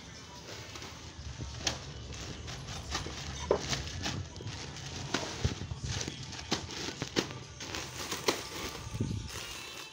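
Plastic food packets and a clear plastic bag crinkling and rustling as they are handled and packed by hand, with irregular sharp taps and knocks as packets are set down and pressed into the bag.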